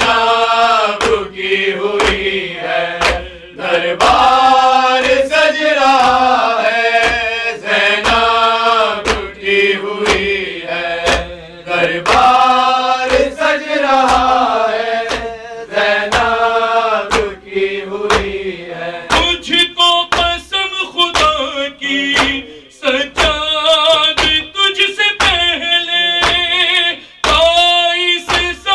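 A man chanting a melodic devotional recitation, his voice gliding and held on long notes, with a steady beat of thumps in time with it. The beat gets quicker about two-thirds of the way through.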